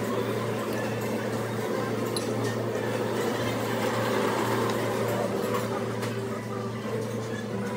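Restaurant dining-room ambience: a steady low hum with an even background haze, faint chatter and a few light clinks of tableware.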